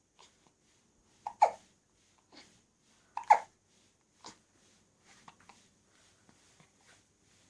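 A person hiccuping: two loud, sharp hiccups about two seconds apart, with a few fainter hiccup-like catches and small clicks of breath around them.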